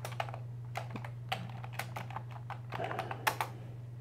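Typing on a computer keyboard: quick, irregular keystrokes, with a couple of sharper strokes about three seconds in, over a steady low hum.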